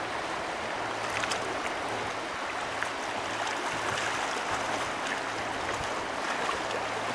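Shallow river water rushing steadily over a rocky riffle, with a few faint clicks about a second in and near three seconds in.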